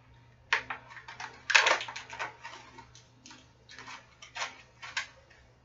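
Hands handling a boxed bobblehead and its cardboard-and-plastic packaging on a tabletop: a string of light clicks, taps and rustles, the loudest cluster about a second and a half in, then single clicks spaced about half a second apart.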